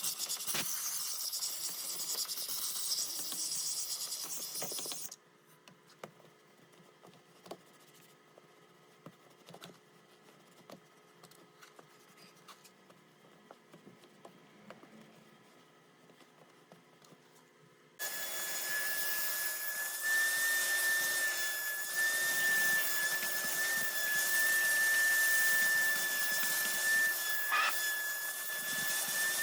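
A hissing spray for about five seconds, then quiet handling clicks, then a vacuum cleaner starting up and running steadily with a high motor whine.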